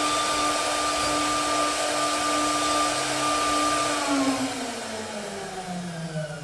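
CNC router spindle whining at a steady high speed as it carves a wooden pillar turned on the machine's rotary axis. About four seconds in, its pitch falls steadily as the spindle winds down.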